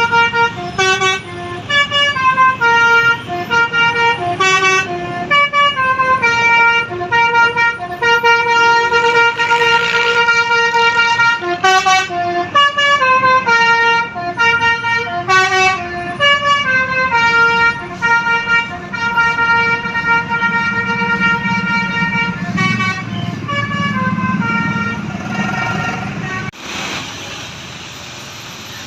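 A bus's Basuri telolet horn playing a long, loud melody of stepping horn notes over the low running of the bus's engine. About 26 seconds in it cuts off suddenly, leaving a steady traffic-like noise.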